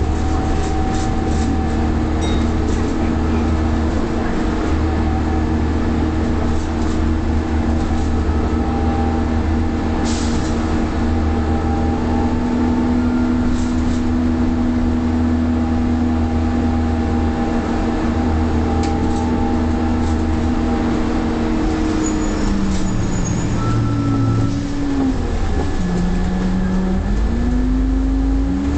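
Leyland Olympian double-decker bus's diesel engine and drivetrain running at a steady cruise, heard from inside the cabin, with a steady whine over a low rumble. About three quarters of the way through the whine drops in pitch as the bus slows, then rises again near the end as it picks up speed.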